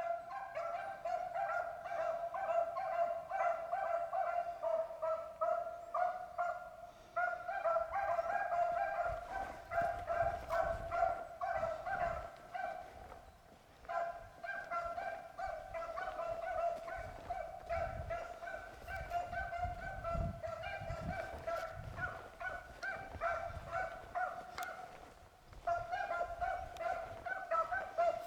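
Beagles baying on a running rabbit's track: a steady chorus of rapid, repeated cries that breaks off briefly three times. This is the sign that the hounds are on the scent and pushing the rabbit.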